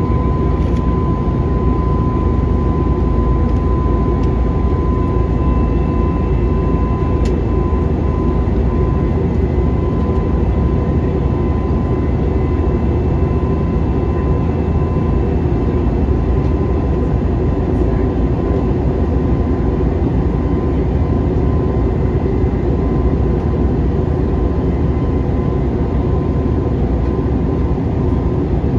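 Steady in-flight cabin noise of an Airbus A321neo: an even, deep rumble of jet engines and airflow with a thin steady tone above it.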